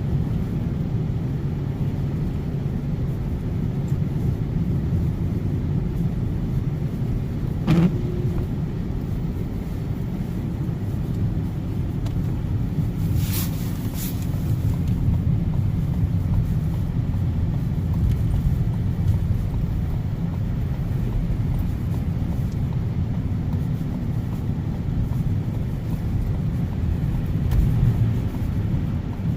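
Steady low rumble of a car's engine and tyres heard from inside the cabin while driving on snow-covered roads. A single sharp click comes about 8 seconds in, and two brief high hisses come a few seconds later.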